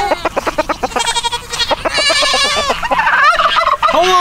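Domestic turkeys gobbling: rapid rattling calls, one after another. A lower honking call comes in near the end.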